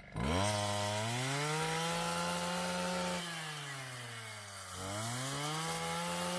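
Brush cutter (grass-cutting machine) fitted with a rice-harvesting blade, its small engine revving up and running high while cutting rice paddy. It eases off about three seconds in and revs up again near five seconds.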